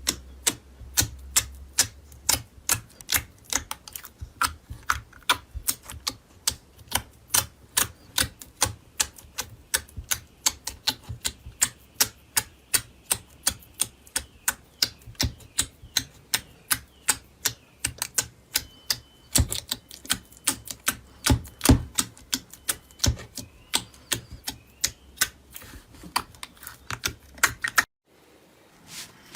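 Slime being pressed, poked and stretched by hand, giving crisp sticky clicks and pops several times a second. The clicking stops abruptly about a second before the end.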